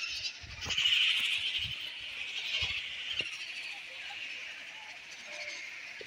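A steady, high-pitched din from a tree colony of nesting painted storks and their chicks, loudest about a second in, with a few faint low knocks.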